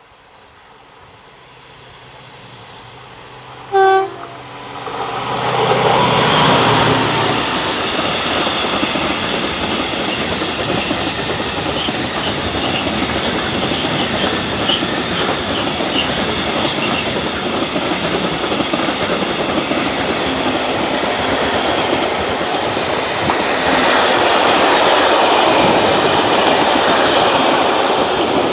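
Works train approaching and passing at speed through a station. There is one short horn blast about four seconds in, then the loud continuous noise of the wagons' wheels running over the rails as the train goes by.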